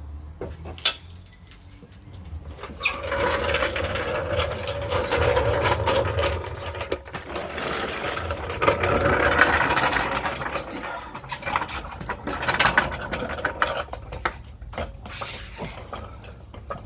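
A jack being worked to raise it under the back of a van's engine and take the engine's weight. It makes a squeaky mechanical noise with a steady whine in it, building from about three seconds in and easing off after about eleven seconds into scattered clicks and knocks.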